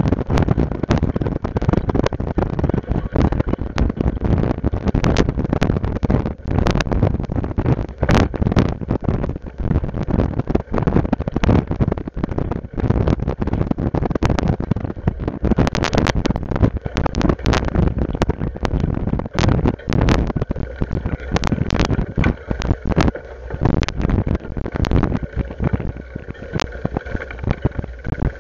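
Rushing wind buffeting the microphone of a camera riding along a paved trail, with frequent sharp knocks and rattles as it bumps along. About two-thirds of the way through a faint steady high whine joins in.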